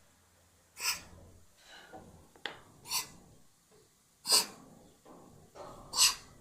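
A cat coughing in a fit: four sharp coughs about a second and a half apart, with quieter breaths between them. It is a recurring cough whose cause the owner's vet could not find.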